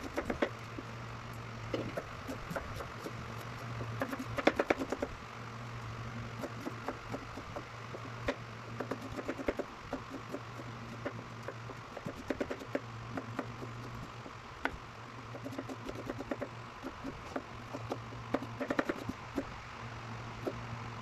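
Knife chopping red onions on a plastic cutting board: irregular runs of quick taps of the blade against the board, with brief pauses between runs. A low hum comes and goes underneath.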